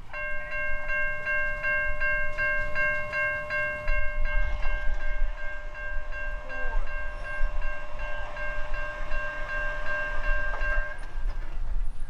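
Railroad grade-crossing warning bell ringing in a steady, fast rhythm of about two to three strokes a second, stopping about eleven seconds in, over the low rumble of a slowly moving freight train.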